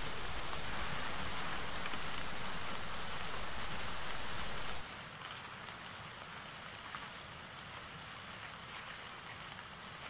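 A steady, even outdoor hiss with a low rumble underneath, like rain or wind on the microphone. It drops abruptly about five seconds in to a much fainter hiss with a few soft crackles.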